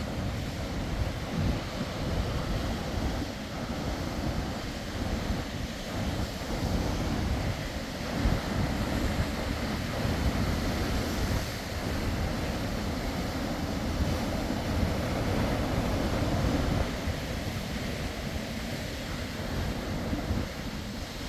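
Sea waves breaking and washing on the shore, a steady rush of surf that swells and eases, with wind buffeting the microphone in low rumbles.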